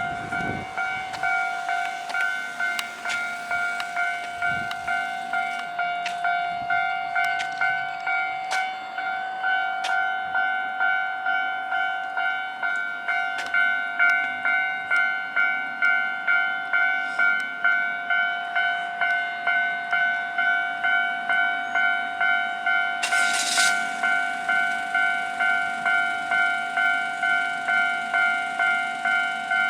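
Japanese railway level-crossing warning bell ringing, a steady repeating electronic clang that signals an approaching train. A short hiss breaks in about two-thirds of the way through.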